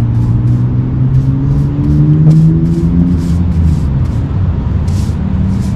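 A motor vehicle engine running with a steady low hum that drifts slightly up in pitch around the middle, with short scratchy brush strokes on concrete about twice a second.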